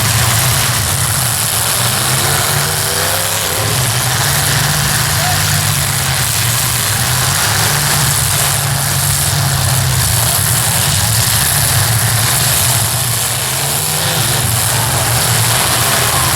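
Several demolition derby cars' engines running together in a steady loud drone, with a few brief rises in pitch as engines are revved.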